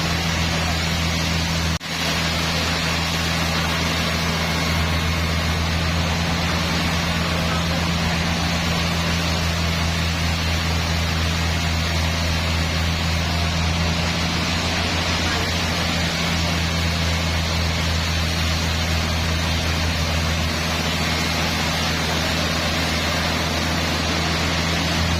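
Sawmill machinery running steadily: a constant low motor hum under a broad, even mechanical noise, with a brief break about two seconds in.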